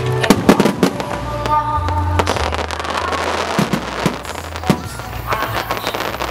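Aerial firework shells bursting, with a cluster of sharp bangs and crackle in the first second and another sharp bang about four and a half seconds in. Music plays underneath throughout.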